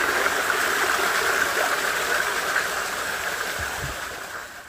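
Stream water rushing and gurgling steadily over stones, a constant hiss that fades slightly near the end.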